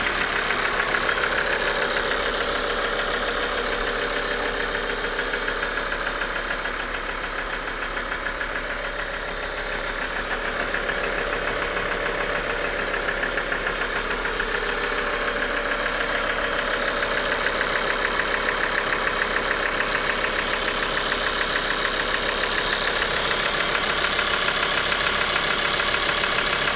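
Car engine idling with a rapid, even ticking clatter, dipping slightly in level a few seconds in: the noise of failing fuel injectors and a worn-out oil pump.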